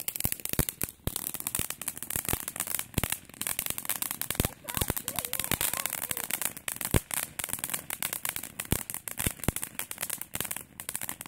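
Small consumer fireworks crackling, with a dense, irregular stream of sharp pops and snaps that keeps going without a break.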